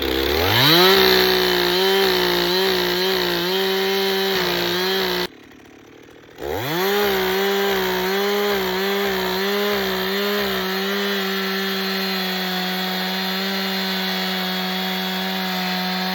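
Old two-stroke chainsaw revving, its chain just turned around and re-tensioned and run to test whether it is over-tightened. It revs up, blips the throttle several times, drops out for about a second, then revs back up and holds steady at high speed.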